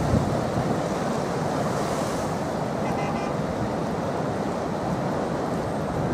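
Storm surf breaking and washing in a steady, heavy roar of sea, with wind buffeting the microphone.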